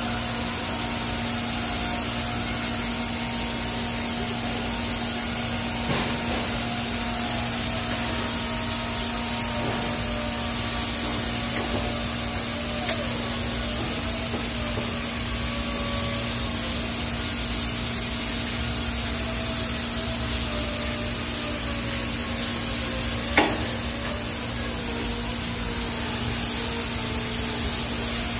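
TIG welding arc on stainless steel pipe during a root pass: a steady hiss with a constant low hum and faint wavering tones, and one sharp click about 23 seconds in.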